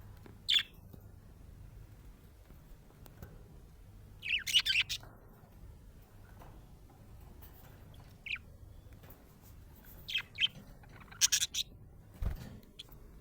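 Budgerigar chirping in short separate bursts, with pauses of a few seconds between them and a quick run of chirps about four seconds in and again near eleven seconds. A brief low thump near the end.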